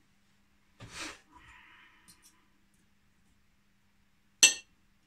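Cutlery on a plate while eating: a short soft rustle about a second in, then one sharp clink of metal cutlery striking the plate near the end, the loudest sound.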